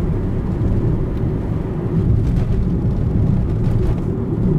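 Car driving along a road, heard from inside the cabin: a steady low rumble of engine and tyre noise, with a few faint ticks.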